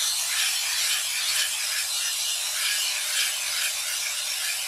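Can of Gaps and Cracks expanding spray foam spraying in a steady hiss as the rest of the can is emptied, with a faint, rapid sputter under the hiss.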